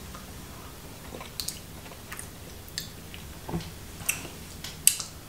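A person chewing a mouthful of mashed potato and broccoli stew, with small wet mouth sounds and a few sharp clicks of knife and fork on the plate, the loudest near the end.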